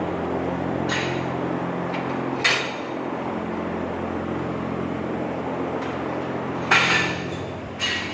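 Dairy cow-shed cooling system running with a steady mechanical hum, broken by four short sharp clanks.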